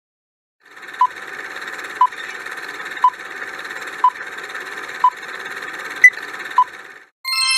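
Quiz countdown timer sound effect: a steady hiss with a short beep about once a second, the last beep higher and followed quickly by one more, then a bright ringing chime near the end as time runs out.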